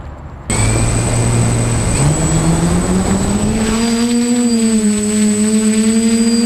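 Electric motors of a home-built quadcopter on a TBS Discovery Pro frame, heard from its own on-board camera. They start suddenly about half a second in and rise in pitch over the next few seconds as the drone lifts off. They then run at a steady pitch with a thin high whine while it hovers.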